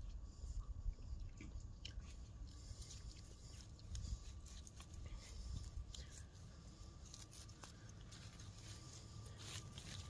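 Faint crunching and snapping as wild sorrel stems are cut at the root with a small knife, with scattered soft crackles of leaves being handled.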